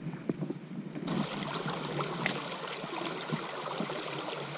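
Small creek water rushing over a fallen log and stones in a shallow riffle, a steady rush that starts abruptly about a second in. There is a single sharp click about two seconds in.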